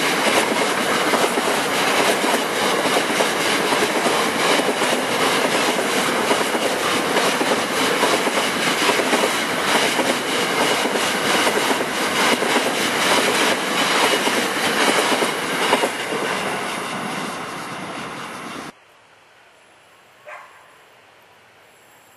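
A train rolling past close by, its wheels clicking over the rail joints in a steady rush of noise that fades away toward the end. It cuts off suddenly about nineteen seconds in, leaving quiet background with one short, thin whistle-like note.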